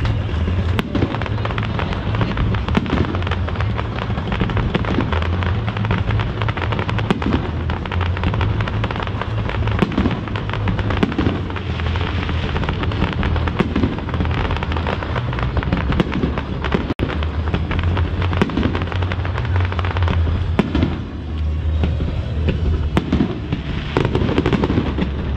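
Aerial firework shells bursting over the lake in a dense series of sharp bangs, over music playing through outdoor loudspeakers with a steady bass line.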